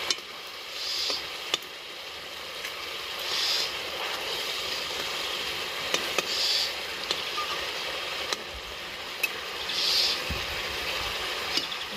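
Koi fish curry simmering and sizzling in oil in an aluminium kadai, with a metal spatula scraping through the pan every few seconds and a few light taps against it as the fish are turned.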